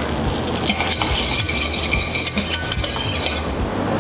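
Melted butter with cumin powder sizzling in a stainless steel saucepan; from about a second in, a metal whisk stirs it with quick, irregular clinks against the pan.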